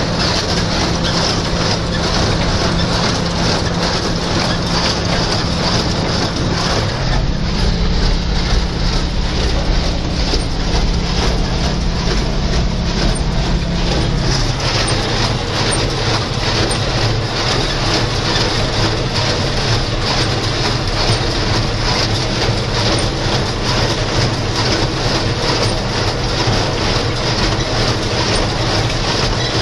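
John Deere 2140 diesel tractor running under load as it pulls a New Holland 268 small square baler through hay, with the baler's machinery clattering over the engine. The engine note shifts about seven seconds in and again around fourteen seconds.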